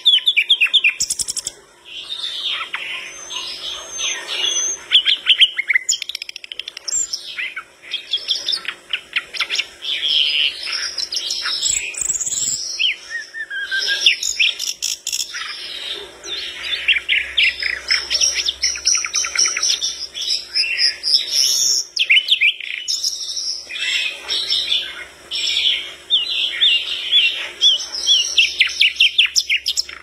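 Brown-chested jungle flycatcher (sikatan londo) singing a long, rapid, varied song of high trills and chattering phrases, broken by a few short pauses.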